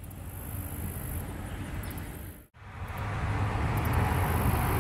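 Low rumbling wind noise buffeting a handheld microphone outdoors. It cuts out abruptly about halfway through and comes back louder.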